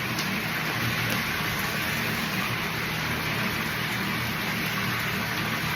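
Water running steadily from a tap, a constant rushing hiss.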